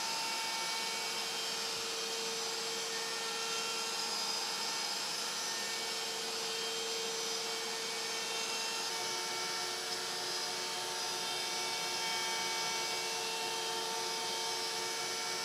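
Shapeoko CNC router's spindle running and cutting a circular recess in half-inch birch plywood, a steady whine with several steady tones over a constant hiss.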